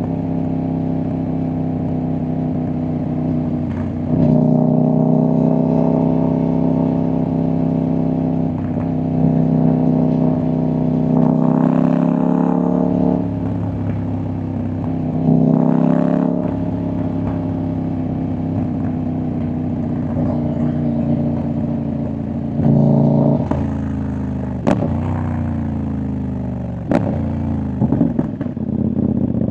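CFMOTO 800NK's parallel-twin engine and exhaust under way, the note rising and falling with the throttle. Near the end it drops in pitch as the engine slows, with a few sharp pops and crackles from the exhaust.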